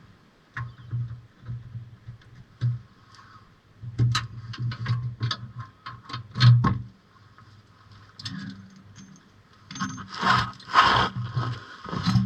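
Irregular metallic clinks, knocks and scrapes of hand tools and car parts being handled, with a louder, busier cluster about ten seconds in.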